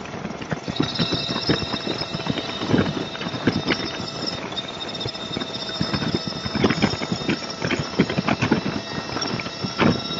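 Freeway riding noise picked up by a camera mounted on a motorcycle: a dense run of irregular knocks and rattles over a steady hum of engine and road, with a thin high whine.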